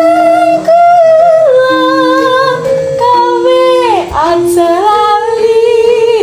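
A woman singing a slow Javanese melody in sindhen style, holding long notes with ornamented slides and a swooping fall about four seconds in. A steady lower note comes and goes underneath the voice.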